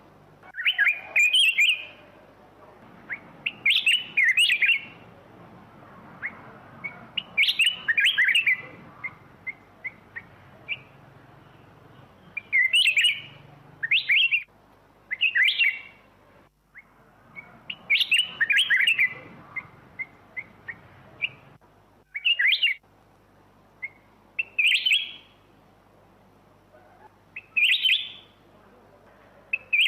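Black-crested bulbul singing: short, warbled phrases repeated every two to four seconds.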